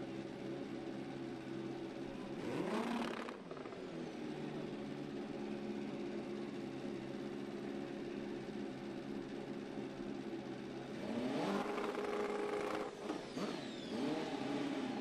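An engine running steadily at a low idle, with two spells of engine sound rising and falling in pitch, about three seconds in and again from about eleven seconds, as vehicles rev or pass.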